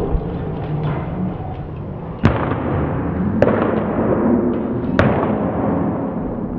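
Three sharp pops of baseballs smacking into catchers' leather mitts, spaced a second or more apart, over a steady murmur of the bullpen.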